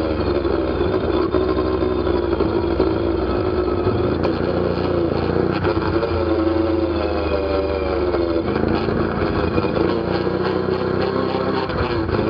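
ATV engine running under way, its pitch rising and falling as the throttle changes.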